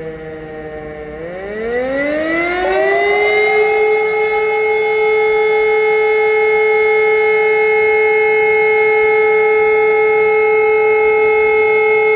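German civil-defence sirens, an E57 electromechanical siren together with an Ergatec EWS4 electronic siren, sounding the 'Feueralarm' test signal. About a second in, the tone sweeps up from low pitch and then holds a loud, steady wail.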